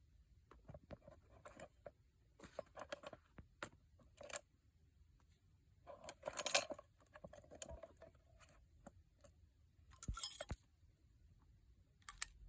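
Small metal chainsaw hand tools clinking and rattling as they are handled in and out of a leather tool pouch, with light rustling and scraping. The loudest clatter comes about halfway through, and another follows a few seconds later.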